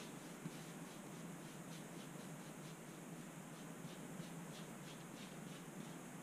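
Faint scratchy brushing of a paintbrush working acrylic paint across a canvas, in quick repeated strokes.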